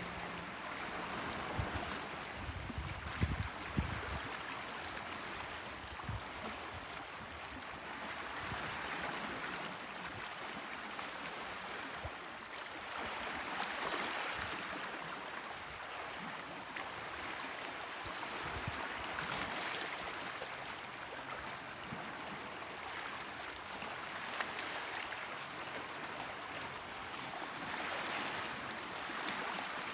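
Small Mediterranean sea waves washing on the shore, the hiss of the water swelling and fading every few seconds. There are a few low thuds about one to four seconds in.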